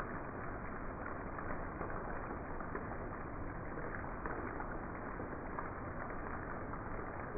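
Heavy rain pouring steadily on a paved driveway, grass and trees: an even, unbroken hiss.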